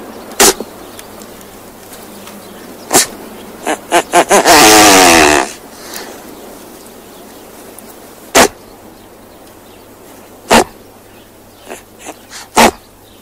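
Great bustard calls: short sharp pops a few seconds apart, and about four seconds in a louder, wavering, pitched call lasting about a second.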